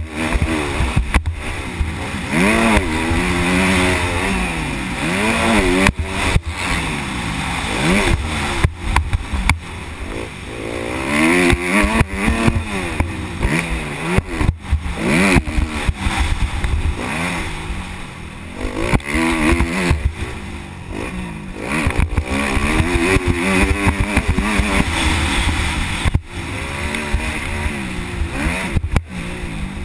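Dirt bike engine heard from on board while lapping a motocross track, revving up and falling off again and again as the rider accelerates, shifts and rolls off. Wind buffets the microphone as a low rumble, with a few sharp knocks from the bumps.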